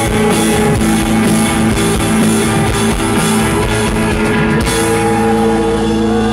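Rock band playing live: electric guitar, bass guitar, drums and keyboards. About four and a half seconds in the drums stop and a held chord rings on.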